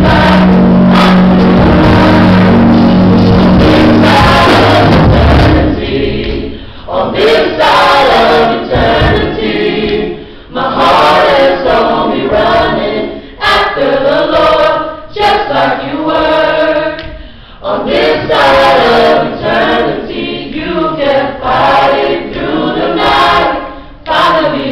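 A mixed group of men and women singing a gospel song together into microphones. For the first five seconds or so, steady low notes sound loudly under the voices; after that the voices carry on with little backing, in phrases broken by short pauses.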